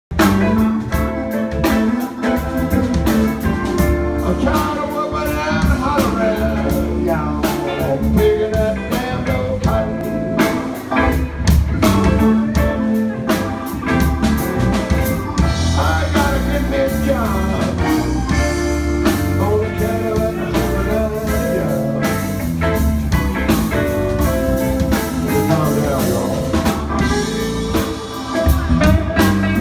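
Live blues band playing: electric guitars over bass and a drum kit, with bending guitar notes.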